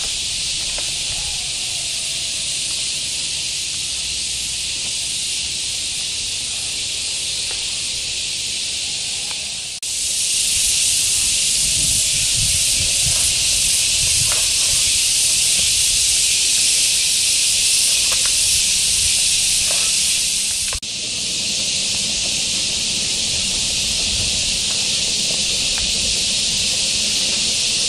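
Dense, steady, high hissing chorus of insects in tropical vegetation. It jumps louder about ten seconds in and drops back about twenty-one seconds in.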